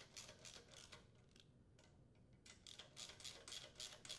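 Faint, rapid clicking of a ratchet socket wrench tightening the ignition coil's mounting bolts, in two runs with a pause of about a second and a half between them.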